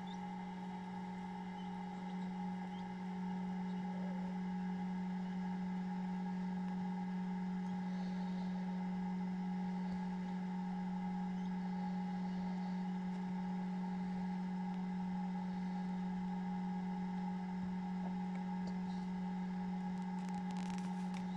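Steady electrical hum of an egg incubator, a low drone with a fainter higher tone above it. A few faint, short high peeps come from hatching Chinese painted quail chicks now and then.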